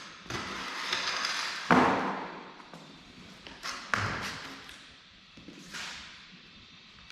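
Two sharp knocks, about a second and a half and four seconds in, among rustling handling noise.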